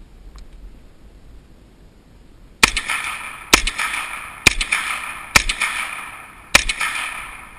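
Five single shots from a JRC (Just Right Carbine) 9mm rifle, fired roughly one a second starting a little past two seconds in, each followed by a ringing echo that fades over about a second.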